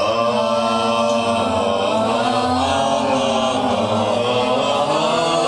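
A group of voices singing a traditional Finnish sauna song together, with long held notes that glide slowly in pitch.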